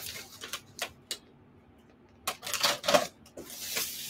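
Cardboard shipping box being opened by hand: a few short sharp clicks at first, then, after a brief pause, bursts of tape and cardboard scraping and rustling.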